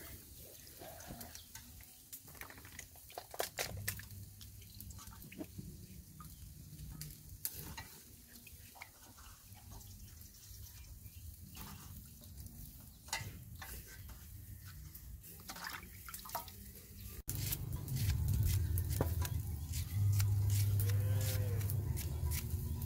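Hands swishing peeled garlic cloves and herb leaves in a metal basin of water: small splashes, drips and light knocks against the basin. About two-thirds of the way through, the sound cuts to a louder, steady low drone.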